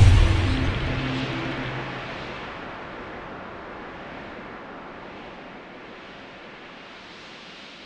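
Cinematic logo-sting sound design: a deep boom with a low hum that fades over the first two seconds, leaving a hissing wash of noise that slowly dies away.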